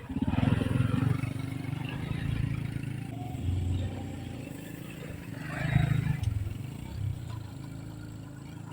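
An engine running with a steady low hum. It swells just after the start and again about six seconds in.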